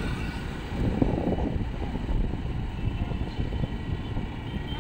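Riding noise on a moving motor two-wheeler: a steady rumble of wind buffeting the phone's microphone over the engine and the traffic.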